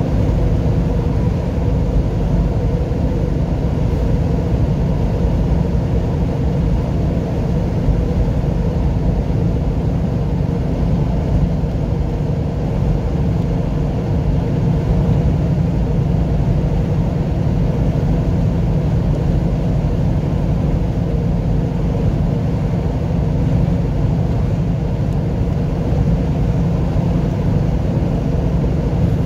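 Steady low drone of a semi-truck's engine and tyres heard from inside the cab while cruising at highway speed, with a few even engine tones over the rumble.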